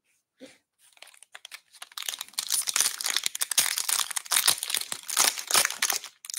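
Plastic wrapper of a 2022 Bowman Draft baseball card pack crinkling and tearing as it is ripped open by hand. The crackle starts faintly about a second in and grows dense and loud from about two seconds on.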